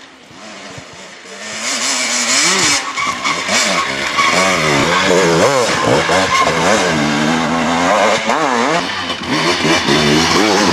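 Enduro motorcycle engine revving up and down over and over as the rider works the throttle, getting louder from about two seconds in as the bike approaches and passes close.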